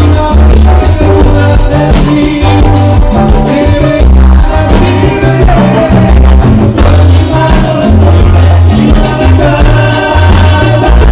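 Live Latin dance band playing loudly: singers over electric bass, drum kit, keyboard and hand percussion, with a heavy pulsing bass line.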